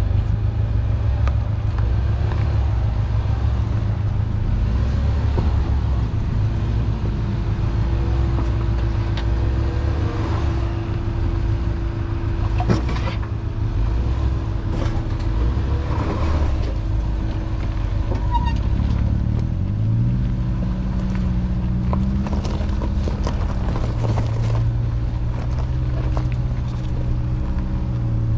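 Ford Bronco Sport engine running at low speed as the SUV crawls over a rough dirt trail, with occasional knocks and clicks. About twenty seconds in the engine note rises for a few seconds, then drops back.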